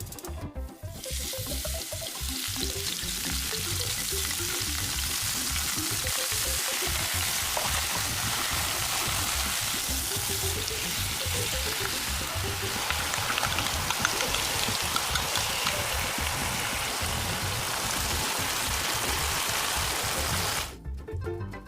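Food sizzling steadily in a hot pan, a dense crackling hiss that starts about a second in and cuts off abruptly near the end.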